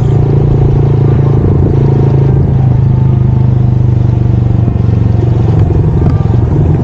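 Honda Monkey 125's single-cylinder four-stroke engine running steadily while the bike is ridden, a loud low drone; its note changes about five seconds in.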